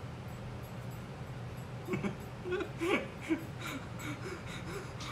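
Breathless, wheezing laughter: a run of short, squeaky, high-pitched gasps starting about two seconds in, over a low steady hum.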